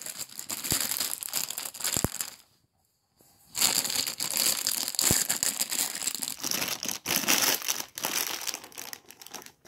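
Thin clear plastic bag crinkling and rustling as hands pull it open and peel it off a stack of biscuits, broken by about a second of silence some two and a half seconds in.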